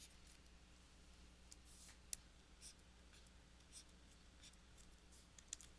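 Faint scratching of a stylus drawing short strokes on a tablet, with two sharper clicks, about two seconds in and near the end, over a low steady hum.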